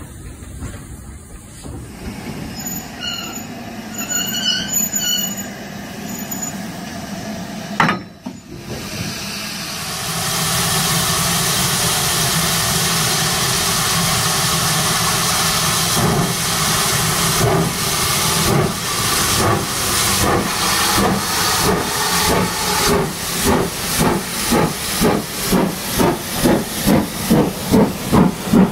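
Steam locomotive sound of a Midland 4F 0-6-0 pulling its train away. A steady hiss of steam comes in about a third of the way through, then exhaust chuffs start around the middle and quicken steadily to two or three beats a second.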